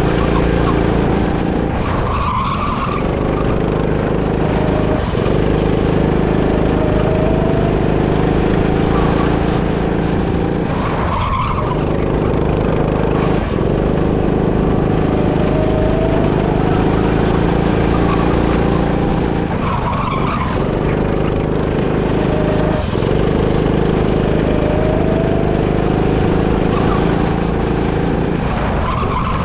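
Go-kart engine running hard, heard from onboard, rising in pitch as it accelerates. A short tyre skid comes about every nine seconds, four times in all, as the kart goes through the same corner each lap.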